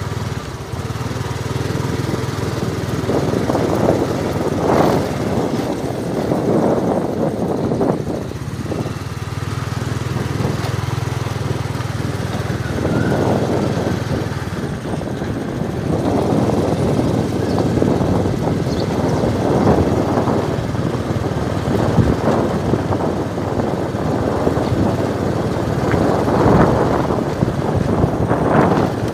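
Motorbike engine running steadily at cruising speed, with repeated gusts of wind noise buffeting the microphone.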